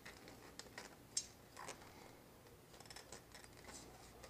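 Faint scattered clicks and rustles of fingers working at a plastic cable clip and wiring inside a motorcycle's tail bodywork, with one sharper click a little over a second in and a run of small ticks near the end.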